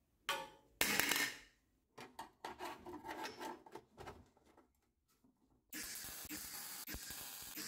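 A short burst of noise about a second in, then scraping and rubbing as a thin sheet-steel reinforcement plate is handled and fitted against the car's floor pan. From about six seconds in, the steady hiss of arc welding as the plate is welded to the body.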